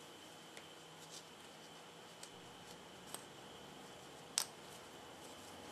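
A few faint, sharp clicks and taps of small metal jack parts being handled and fitted, the loudest about four seconds in, over quiet room hiss.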